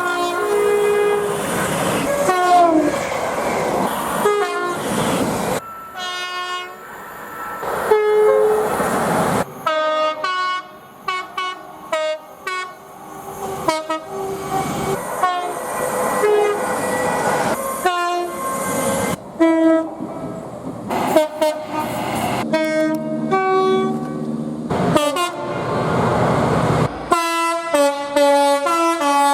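Train horns sounding in a rapid series of separate clips: short and long blasts of several tones at once, a few dropping in pitch as a train passes. Train running noise lies beneath.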